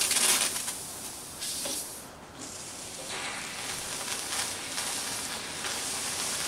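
Steam hissing from a steam wand blown into a guitar's glued neck joint to soften the glue for a neck reset. The hiss is loudest at the start, dips briefly about two seconds in, then runs on steadily.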